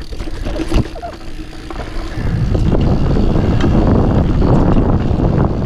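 Full-suspension mountain bike riding downhill over tree roots: a few sharp knocks from the bike in the first second, then a loud, steady rushing rumble of wind and tyres on the action camera's microphone from about two seconds in.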